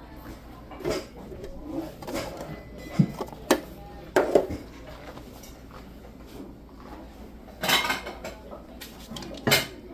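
Metal kitchenware being handled: several separate clinks and clanks of utensils and pots, with the loudest knocks about three to four and a half seconds in and again near the end.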